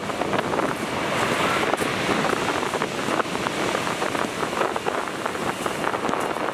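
Coastguard AW189 search-and-rescue helicopter flying low overhead, its rotors and turbines running as a steady, rapidly chopping rush, mixed with wind buffeting the microphone.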